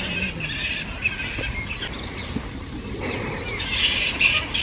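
Wetland birds chirping and calling, with a louder spell of calls near the end, over a low background rumble.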